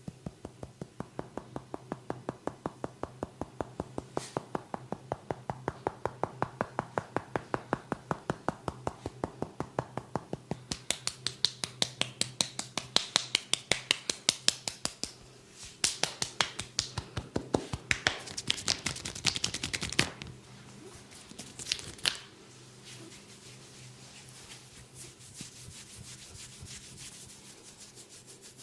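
Rapid, even hand strikes of a percussive massage on the body, about five a second. They grow louder and denser through the middle, stop abruptly, and a couple of last strikes follow. A steady low hum runs underneath.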